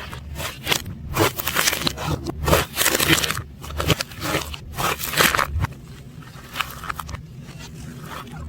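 Slime being squished, stretched and pressed by hand, with irregular sticky crackles and pops, played backwards. The sounds come thick for the first five seconds or so, then thin out to a few scattered pops.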